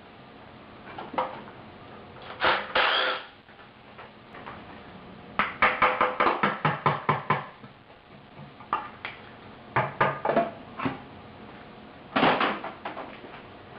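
Metal tool clicks and clanks as the oil pan bolts come out of a 13B rotary engine, with a quick run of about ten even clicks around the middle and a louder clatter near the end.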